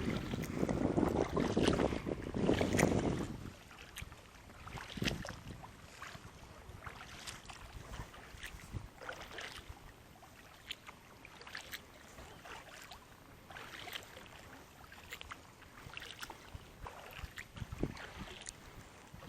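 Water sloshing and lapping against a small boat, with wind on the microphone: a louder rushing splash in the first few seconds, then quieter lapping with scattered small knocks and clicks.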